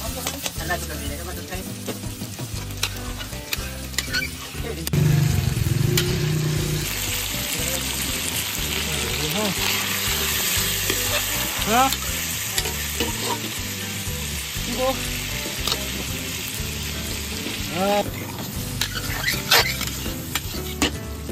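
Chicken pieces and tomatoes frying and sizzling in a hot steel karahi (wok), stirred and tossed with metal tongs and a spoon that scrape and clink against the pan. The sizzle grows louder about a third of the way in and eases off near the end.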